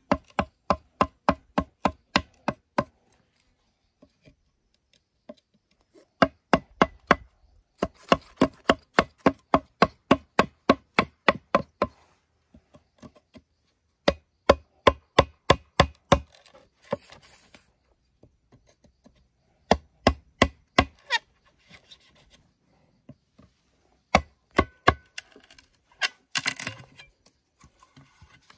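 Rapid chopping strokes on bamboo, about four a second in runs of several seconds with pauses between. Each stroke gives a short pitched ring. Near the end there is a brief rasping noise.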